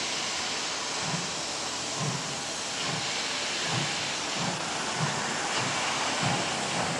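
Ty3 steam locomotive pulling away with a freight train. Its exhaust chuffs come about once a second at first and quicken as it gathers speed, over a steady hiss.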